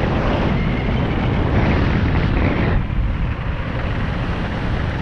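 Wind buffeting the microphone over the rumble of mountain bike tyres on a paved path during a fast descent. The higher hiss eases about three seconds in.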